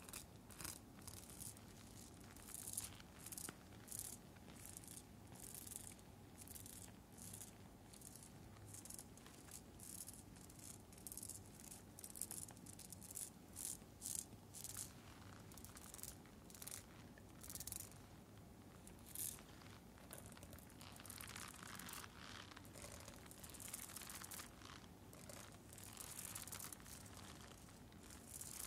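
Soft scratching and rustling on a rhinestone-covered face mask, in short quiet strokes about two a second, busier and fuller for several seconds near the end.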